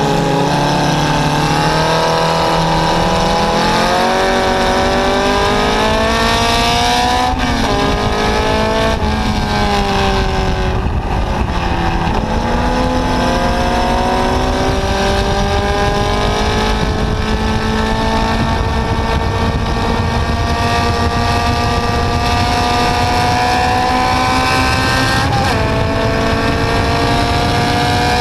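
Onboard sound of a Formula Junior racing car's engine at full racing speed. The pitch climbs and drops sharply at gear changes a few seconds in, falls away for a few seconds under braking, then climbs long and steadily along the straight with one more upshift near the end.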